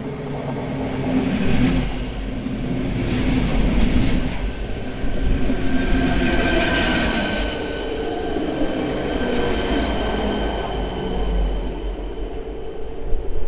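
ČD class 471 CityElefant double-deck electric unit pulling into the platform and slowing to stop, with wheels rumbling on the rails. From about halfway in, a steady high whine sounds as it slows.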